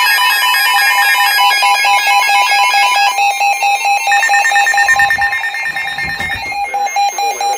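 Weather radio receiver sounding its emergency alert alarm for an incoming flood warning: a loud electronic two-tone signal, pulsing rapidly and steadily.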